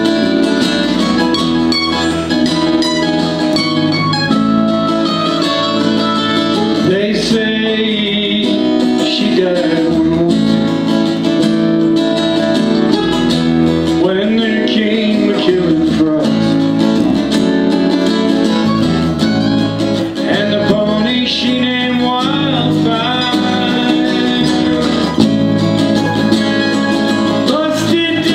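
Live acoustic country-folk band music led by guitars, with a voice singing at times.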